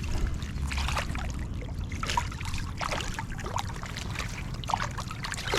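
Water splashing and sloshing in small irregular splashes, over a steady low rumble.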